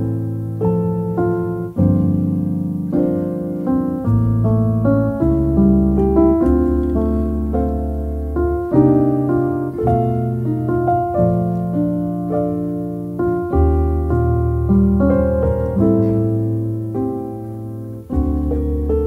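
Background piano music: a calm piece of held low notes changing every couple of seconds, with a melody of shorter notes over them.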